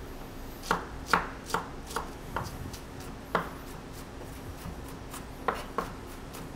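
A knife chopping on a cutting board in a series of quick, irregular strikes, with a pause in the middle and a couple more chops near the end.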